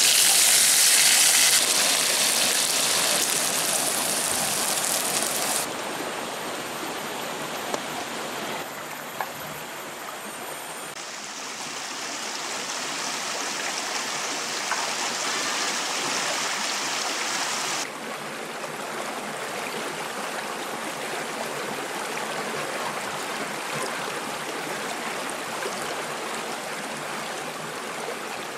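A shallow forest stream running steadily over rocks. A louder, brighter hiss fills the first few seconds, then the water settles to an even, lower level.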